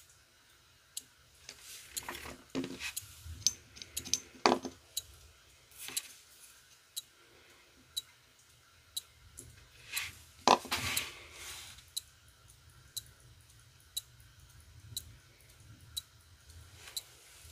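Small metal tools on a watch movement: tweezers and a hand-setting tool tapping, clicking and scraping, loudest in two short clusters. Under it runs a faint click about once a second and a low steady hum from a clothes dryer running nearby.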